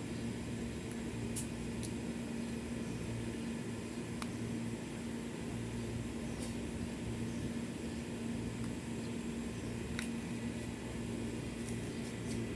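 Steady low electrical hum, like a fan or small motor running, with a few faint light clicks.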